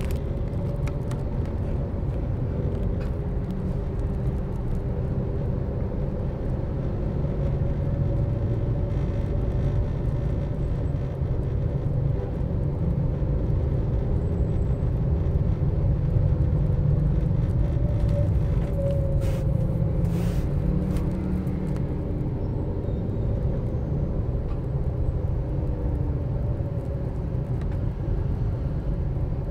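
Car driving slowly through city traffic: a steady low rumble of engine and road, with a faint engine hum that drifts up and down in pitch. A few faint clicks come about two-thirds of the way through.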